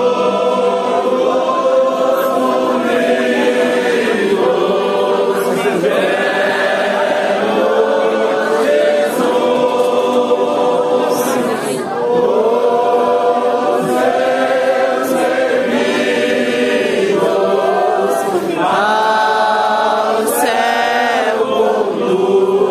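Many voices singing a hymn together as a congregational choir, in long held notes and phrases a few seconds long.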